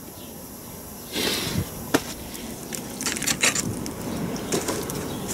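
Metal parts being handled on a workbench: a short scrape, then scattered clinks and taps as a steel bracket and loose nuts are lifted off a transfer box casing, with a sharp click about two seconds in and a quick run of clinks a second later.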